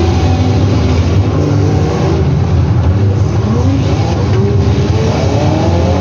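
Full-size demolition derby cars' engines revving, several at once, pitch climbing and falling over a heavy low rumble.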